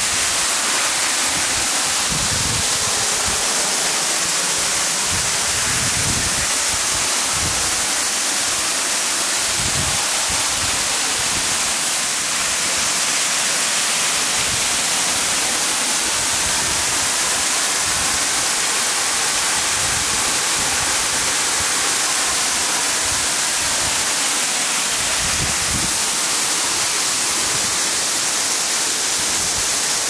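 Steady, dense hiss of a waterfall: a thin curtain of water falling from a rock overhang and splashing below. Occasional short low buffets sit under it.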